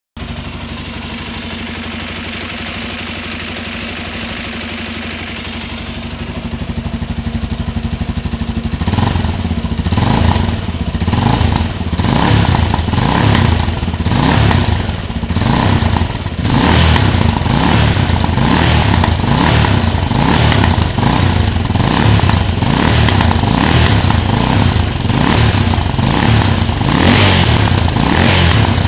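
Suzuki Djebel single-cylinder motorcycle engine idling steadily, then revved in repeated short blips from about nine seconds in, with a high hiss coming in on each rev. It is making a noise the owner finds strange.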